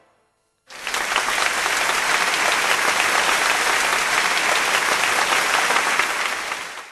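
A crowd applauding steadily, starting abruptly about a second in and cutting off near the end.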